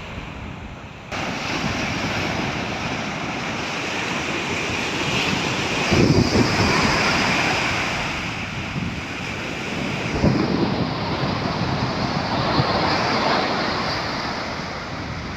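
Surf breaking and washing up a sandy beach, with louder waves coming in about six and ten seconds in. Wind buffets the microphone throughout.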